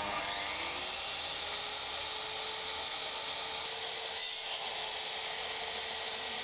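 An electric power tool running steadily at a high pitch after a short spin-up at the start.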